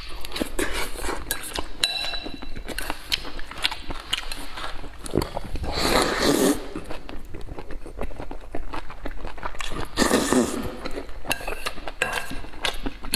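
Close-up eating sounds: wet chewing and lip smacking, with chopsticks clinking against the bowl. Two louder slurps of wide noodles come about six seconds in and again about ten seconds in.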